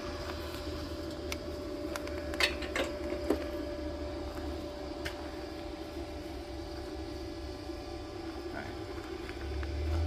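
Steady mechanical hum with a faint constant whine, and a few light clicks.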